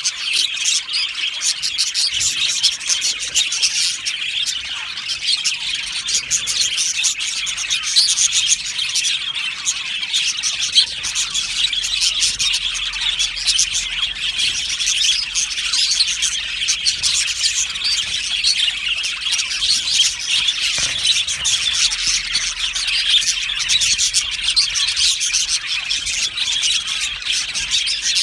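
A colony of budgerigars chirping and chattering all at once, a dense unbroken mass of many overlapping short high chirps.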